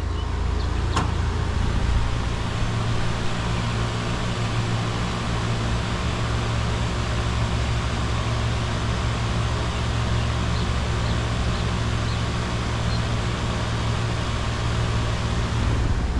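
Outdoor air-conditioner condensing unit running close up: a steady low compressor hum under the rush of the condenser fan. The compressor is making an odd noise even though the refrigerant charge reads normal.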